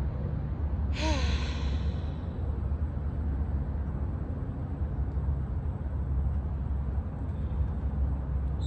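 A woman's audible sigh about a second in: a long breathy exhale with a brief voiced tone, a deep yoga breath. A steady low rumble runs underneath.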